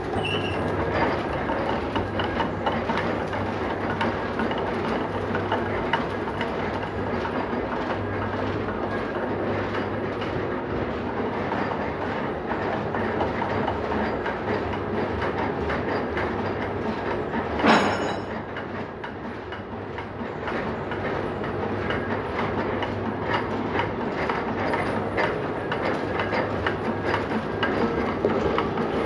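Continuous clattering machine noise with a steady low hum, and one sharp knock a little over halfway through.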